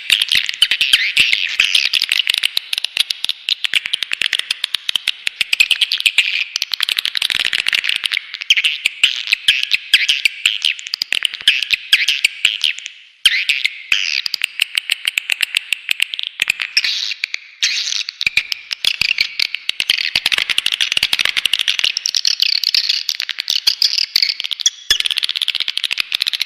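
Recorded swiftlet calls in a dense run of rapid, high chirps and twitters, with a brief break about thirteen seconds in. This is a swiftlet-farming lure sound, played to call swiftlets into a nest house.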